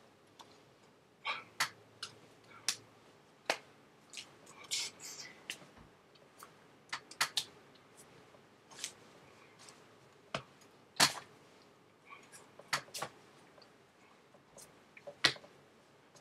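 Sharp, irregular slaps and claps of bare hands striking each other and the chest while signing in sign language, one or two a second at uneven gaps, some much louder than others.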